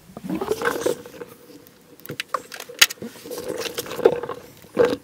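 A hand-held punch pressed against a car's rocker panel through a paper template, snapping with a few sharp clicks as it marks the hole positions for drilling; the loudest click comes a little under three seconds in. A faint steady hum runs underneath.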